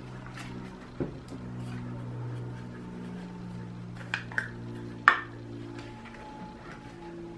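A few sharp plastic clicks and taps from handling a camera lens and its plastic caps: one about a second in, then a cluster between four and five seconds in, loudest just after five seconds, as the lens's rear cap comes off. Soft background music with held chords plays underneath.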